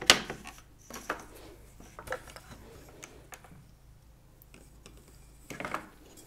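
Wooden heddles of a rigid heddle loom being handled and shifted to change the shed for a tabby pick: one sharp wooden click at the start, then a few lighter clicks about once a second, and a brief rustle near the end.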